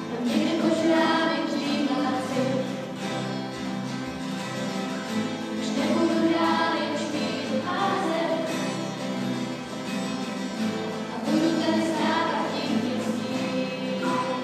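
A group of children singing a song together into microphones, accompanied by several strummed acoustic guitars. The sung phrases swell and ease back every few seconds.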